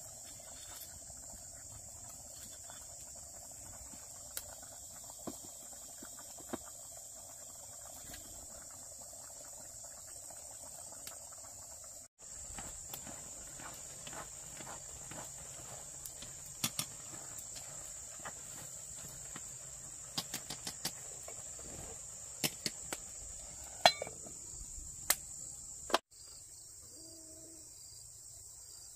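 Insects chirring in a steady high-pitched drone. Scattered sharp clicks and knocks from firewood being handled and a pot stirred over a wood fire come through it, most of them in the second half.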